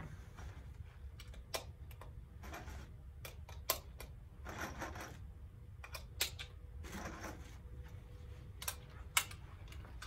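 Scattered light clicks and taps of small equipment being handled, a few at a time, over a low steady room hum.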